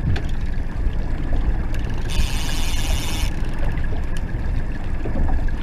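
Wind rumbling on the microphone and water lapping and splashing around a small boat. About two seconds in, a high rattling hiss starts and stops abruptly, lasting about a second.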